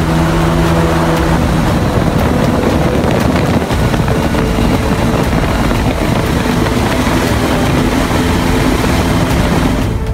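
Airboat's engine and large air propeller running while the boat travels: a loud, steady drone with a noisy rush over it.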